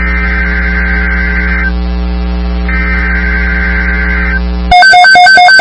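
Emergency Alert System SAME header data bursts: two harsh, screeching digital bursts, each about 1.7 s long and a second apart, over a steady electrical hum. They mark the start of a new alert. Near the end a loud, pulsing electronic alert tone cuts in abruptly.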